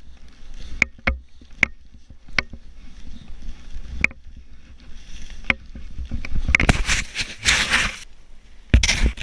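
Skis running through deep powder snow, a rushing hiss that swells loudest from about six and a half to eight seconds in as snow sprays over the camera. Sharp clicks and knocks are scattered through it, coming quickly one after another near the end.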